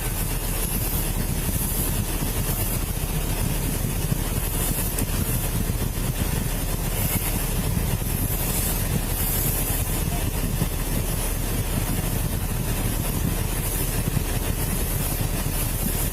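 Steady low rumble with a constant hiss picked up by a body-worn camera microphone, with no distinct events.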